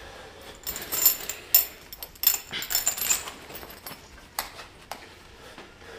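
Light metallic clinking and rattling, most of it in the first half, then two separate sharp clicks.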